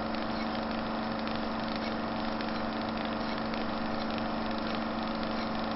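A steady, unchanging mechanical drone like an idling engine, with a constant low hum.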